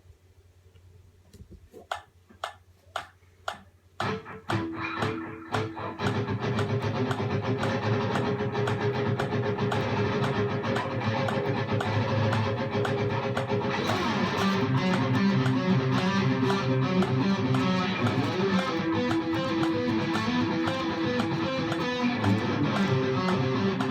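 Ibanez RG550LTD electric guitar with DiMarzio D-Sonic and Air Norton humbuckers, played through an amp for a tone test: a few sharp single plucks about every half second, then from about four seconds in a ringing chord and a continuous riff.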